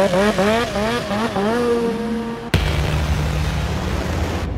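Snowmobile engine revved in quick throttle blips, its pitch rising and falling several times and then holding steady. About two and a half seconds in it cuts to a sudden deep boom that carries on as a low steady rumble, fading near the end.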